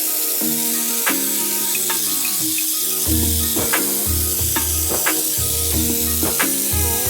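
Background music with sustained chord notes, a falling pitch sweep, and a steady beat whose bass line comes in about three seconds in, over a constant high hiss.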